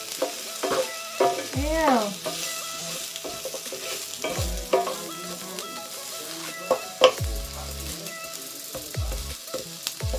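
A wooden spatula scrapes and knocks against an enamelled cast-iron skillet as chopped onion and garlic are stirred, sizzling in hot oil, with irregular sharp taps between the sizzle.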